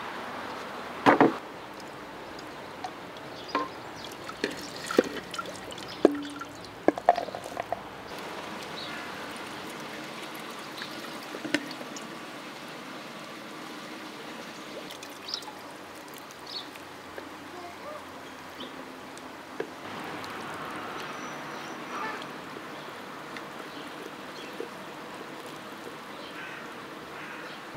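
Metal clanks and clinks from an aluminium steamer pot and its lid, bunched in the first eight seconds, then scattered soft clicks as cooked vegetables are ladled into a wooden bowl and tipped onto a couscous platter, over a steady background hiss.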